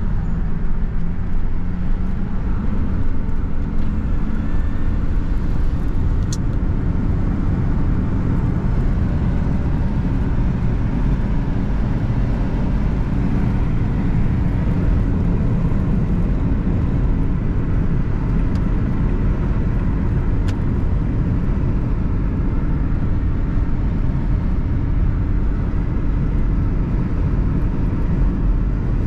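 Steady low road and engine rumble of a car being driven at a constant pace.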